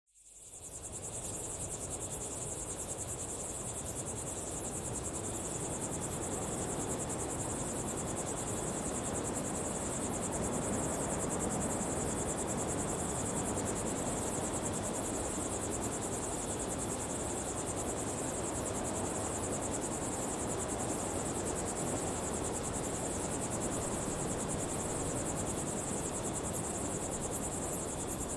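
Daytime desert ambience: a dense, steady chorus of insects with a high, rapid pulsing, over a low even hiss. It fades in over the first second.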